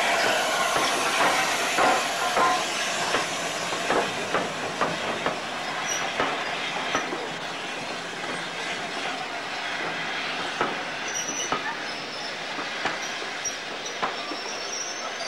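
LNER A4 Pacific steam locomotive and its coaches moving slowly past: a steady hissing rush with irregular clicks and knocks of the wheels over the rail joints, a couple a second, loudest in the first few seconds. A few brief high squeals come near the middle and later.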